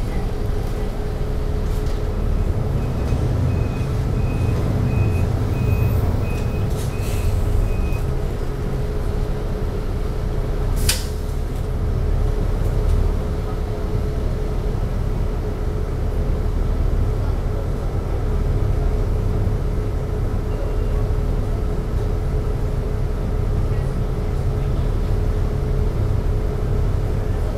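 City bus engine running at low speed, heard from inside the cabin as a steady low rumble while the bus creeps forward and waits in traffic. A run of short high beeps, about two a second, sounds from about three to eight seconds in, and one short sharp noise comes about eleven seconds in.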